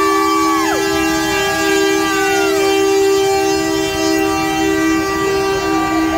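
Semi-truck air horns held in a loud, steady two-note chord. Higher tones glide down in pitch and fade about a second in and again near three seconds in.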